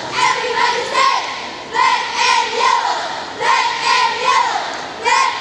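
All-girl cheerleading squad shouting a cheer in unison: high-pitched rhythmic chanted phrases, repeated about every second and a half, ringing in a large hall.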